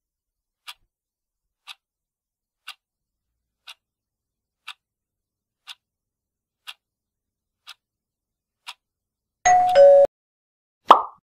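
Countdown timer sound effect ticking once a second, about ten ticks, as a quiz timer runs down to zero. As it reaches zero a short two-note tone steps down in pitch, and about a second later a sharp, loud ding rings and fades quickly.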